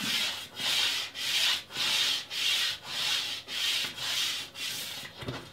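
Dark blue Unison soft pastel stick, used on its side, rubbed back and forth across toothy Pastelmat paper: a rhythmic scratchy rubbing, about two strokes a second.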